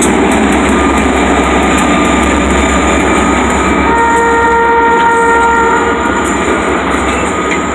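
Freight train rolling past with a steady wheel-and-rail rumble; about four seconds in, a locomotive horn sounds a steady chord for about two seconds.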